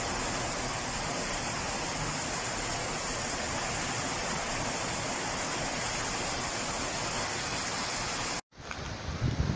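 Floodwater rushing through a street, a steady, even rushing noise. It cuts off suddenly near the end and gives way to gusty wind buffeting the microphone.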